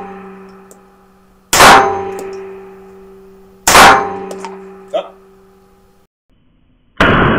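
Three .22 LR shots from a Manurhin-made Walther PP/PPK pistol fired indoors, the first two about two seconds apart and the third about three seconds later. After the shots a metallic ringing hangs on and fades. A short sharp click comes about five seconds in.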